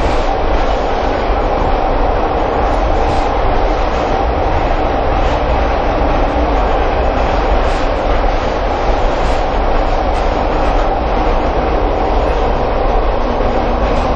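Pyongyang Metro train running: a steady, loud rumble with a constant mid-pitched whine.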